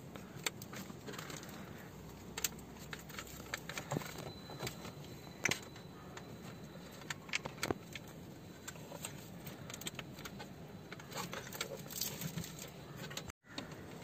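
Irregular clicks and light plastic rattles as an aftermarket car stereo head unit, its plastic dash fascia and the wiring-harness plugs hanging from it are handled.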